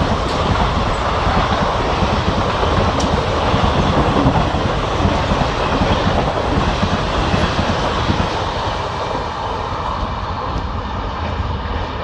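Express passenger train running through at speed close by: a steady loud rush of wheel and rail noise with rapid clatter, easing a little near the end.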